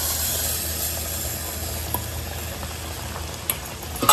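Sambar simmering with a steady hiss in a clay pot as thick cooked dal is poured in, over a low steady hum. A sharp click near the end.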